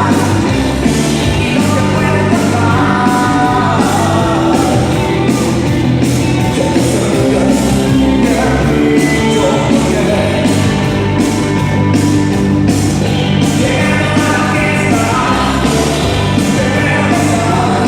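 Latin dance music with singing over a steady, even percussion beat.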